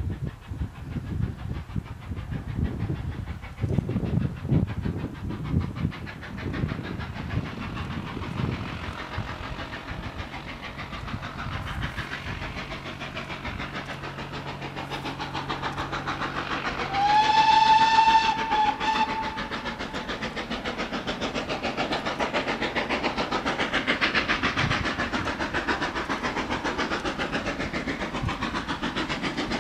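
Steam locomotive hauling a passenger train, its exhaust chuffing in an even rhythm as it draws nearer. A little past the middle it sounds its whistle once, for about two seconds: the loudest sound here.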